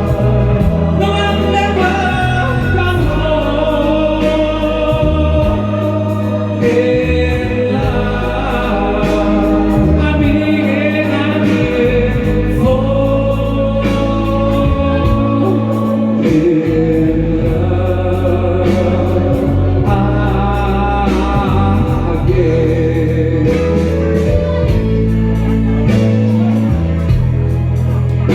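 Music with singing: a song performed over a backing track with a bass line.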